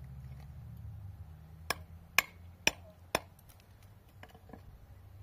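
Four sharp blows of a hatchet striking something on a rock, about two a second, followed by a few faint taps.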